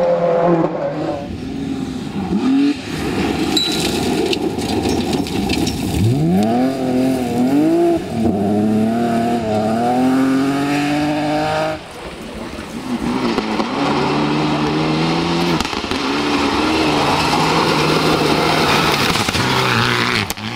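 Rally car engines at full throttle, revving up hard through quick gear changes and lifting off, one car after another as they pass.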